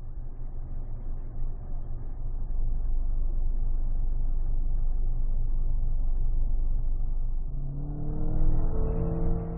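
Volkswagen Jetta sedan driving past, a steady engine and tyre rumble that swells over the first few seconds. About eight seconds in, the engine note climbs in pitch as it accelerates.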